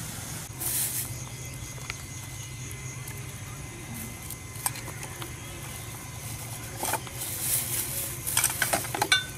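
Plastic bags rustling, with light clicks and knocks of kitchen items being handled, over a steady low hum; the rustling and clicking grow busier over the last couple of seconds.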